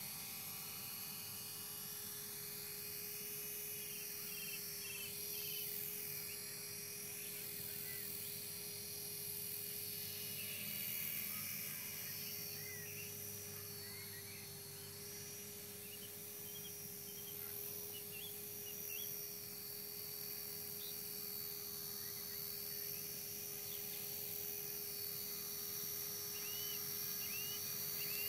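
Esky CPX radio-controlled collective-pitch electric helicopter in flight: a steady whine and buzz from its motor and spinning rotor, drifting slightly up and down in pitch as it manoeuvres.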